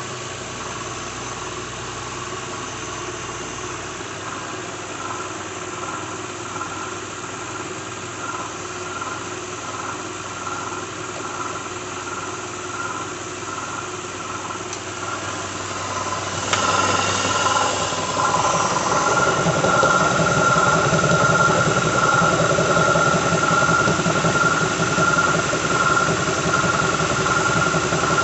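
2006 Lincoln Town Car's 4.6-litre V8 idling with the rattle of a failing harmonic balancer. The sound steps up abruptly, louder and fuller, a little past halfway and stays so.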